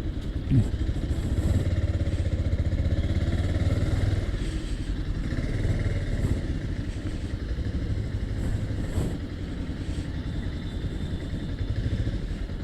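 Bajaj Pulsar 220F's single-cylinder engine running steadily as the motorcycle is ridden, with a brief sharp knock about half a second in.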